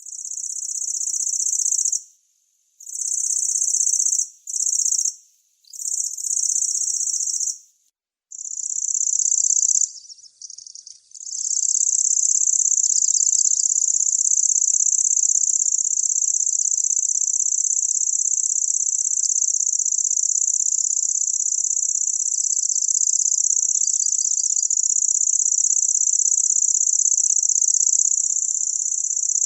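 A Locustella warbler's reeling song: a high, dry, insect-like trill. It comes in several short reels with brief gaps, then runs as one long unbroken reel from about eight seconds in.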